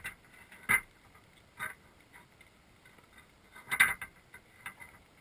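A few irregular, sharp clicks and knocks, recorded underwater through a camera sitting in a baited crab trap; the loudest come about three-quarters of a second in and again near four seconds in.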